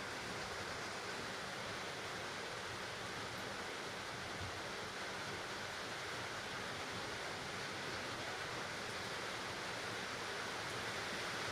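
Steady, even background hiss with no other sounds.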